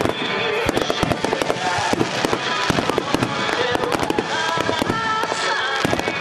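Aerial fireworks display going off in a dense, rapid barrage of bangs and crackles with no let-up.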